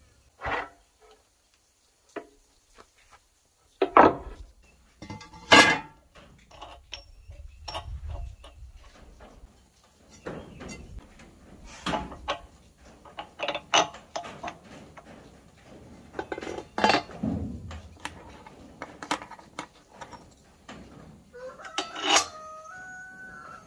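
Irregular metal clinks and knocks as a circular saw blade is fitted onto the arbor shaft of a wood planer and its fittings are handled with a tool. The two loudest knocks come a few seconds in.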